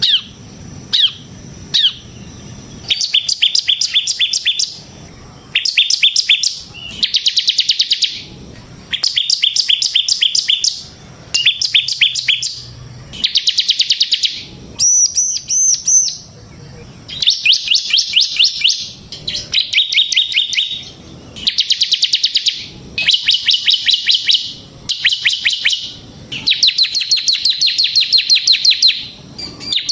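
Bar-winged prinia (ciblek semi) singing continuously: rapid trilled phrases of about a second, repeated with short gaps. About halfway through there is one higher, wavering phrase.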